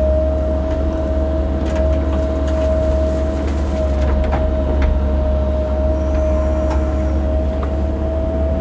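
Cat 308 mini excavator's diesel engine running steadily under load, with a steady whine over the low rumble and a few faint clicks and knocks from the machine at work.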